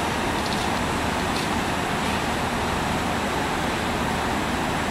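Steady, even noise of a JR Kyushu 787 series electric express train standing at the platform with its equipment running.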